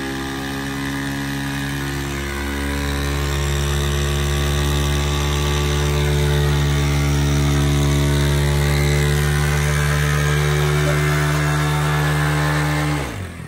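Small motorcycle engine held at high, steady revs with the rear tyre spinning in a stationary burnout on a patch of burning petrol. It grows louder over the first few seconds, then the revs fall away sharply near the end.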